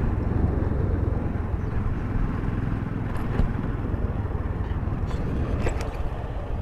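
Motorcycle riding along a road: engine running and wind rushing across the microphone make a steady, low rumble.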